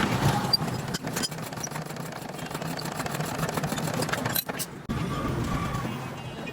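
Small single-cylinder air-cooled diesel engine running with a fast, even knocking beat, broken by abrupt cuts about a second in and again past the middle.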